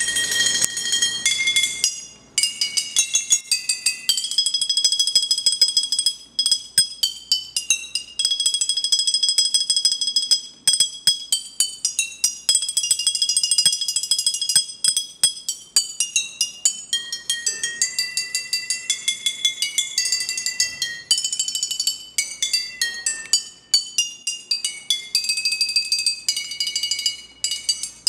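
Tuned glass bottles struck in quick succession, ringing out a melody of clear, high, bell-like notes, with brief pauses between phrases.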